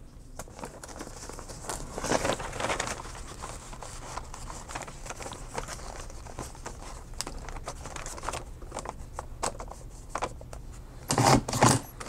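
Paper sheets rustling and crinkling as they are handled and lined up in a disc-bound notebook hole punch, with small scattered clicks throughout and a few louder knocks near the end.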